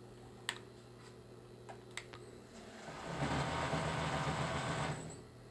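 Industrial coverstitch sewing machine running at speed for about two seconds, starting near the middle and stopping shortly before the end. Two sharp clicks come before it.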